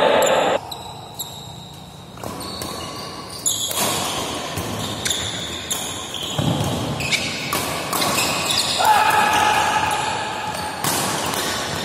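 Doubles badminton rally: irregular sharp racket strikes on the shuttlecock mixed with short high squeaks of shoes on the court mat, echoing in a large hall.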